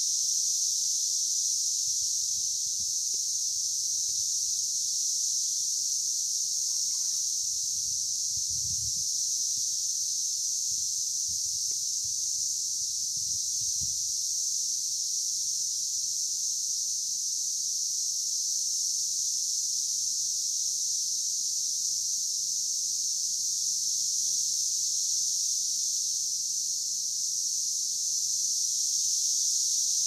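Chorus of male Brood X periodical cicadas singing their mating call: a steady, unbroken high-pitched drone.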